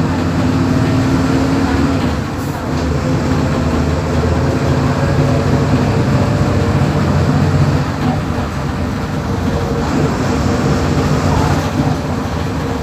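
Diesel engine of a Volkswagen Volksbus 17.230 EOD bus running with a steady low drone, the level dipping briefly about two seconds in and again near eight seconds.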